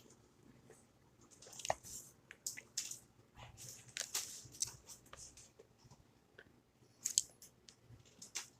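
Quiet, irregular crunches, rustles and small clicks of people eating and handling fast food at a table.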